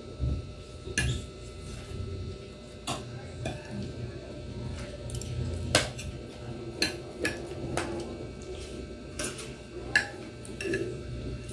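Spoon and fork clinking and scraping against a ceramic plate while eating, a dozen or so irregular sharp clinks.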